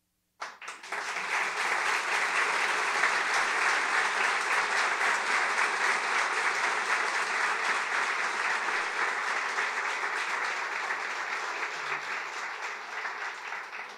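Audience applauding. The clapping starts about half a second in, swells to full within a second, holds steady, and begins to thin out near the end.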